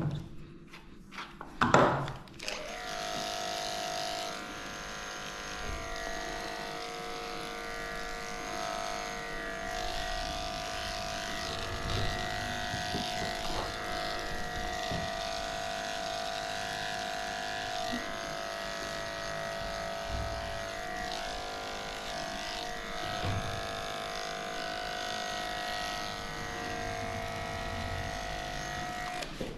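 Cordless electric dog clipper running with a steady hum as it shaves a small dog's coat. It starts about two seconds in, just after a short knock, and runs until just before the end.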